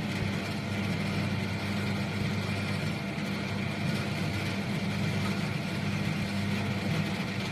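RG80 karipap, dumpling and samosa forming machine running, a steady low motor hum that does not change.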